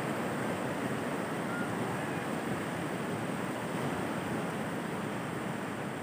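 Fast, muddy floodwater of a swollen river rushing with a steady, even roar of noise.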